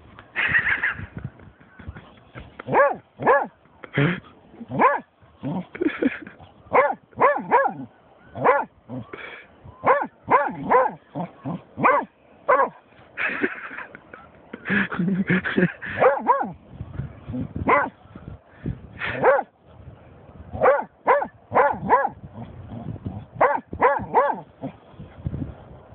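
German shorthaired pointer barking over and over in irregular runs of short barks and yips, with brief pauses between runs.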